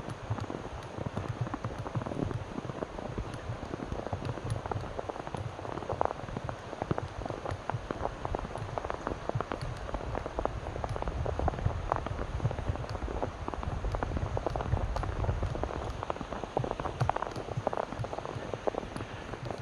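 Footsteps crunching through snow, a continuous run of crisp, crackling crunches with a low rumble underneath.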